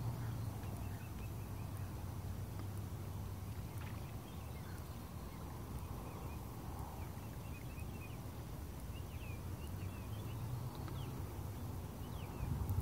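Steady low rumble of water around a kayak, with faint, scattered short bird chirps, more of them in the second half.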